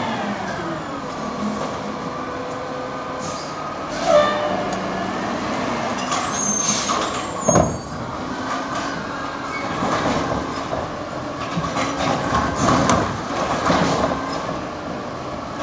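Peterbilt 320 garbage truck with a Wayne Curbtender body, its diesel engine running and revving up and down several times, with the pitch dropping just after the start. A hiss of air about six to seven seconds in, ending in a sharp bang, and a shorter knock about four seconds in.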